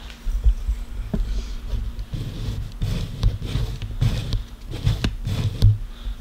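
Irregular low thumps and rubbing with a few sharp clicks as a hard plastic stroller seat frame is handled and turned.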